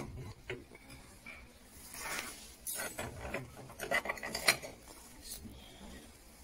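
Ceramic plates clinking against one another as they are handled on a stack, a scatter of short clinks with the sharpest ones about four seconds in.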